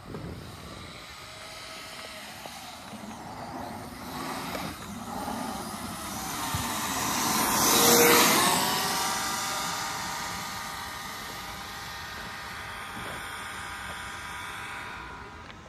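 Brushless-motor Kyosho Mad Force RC car whining at speed as it drives past: the whine grows louder, peaks about halfway through with its pitch dropping as it passes, then holds a steady pitch while slowly fading, and drops away near the end.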